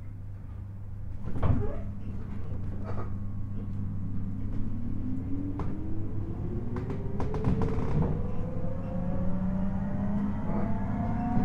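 Interior running sound of a JR 719 series electric train pulling away from a station: a steady low hum with a motor whine rising steadily in pitch as it accelerates. This unit is known for an unusually loud jet-like whine. Several sharp clunks from the wheels and track come through as it starts off.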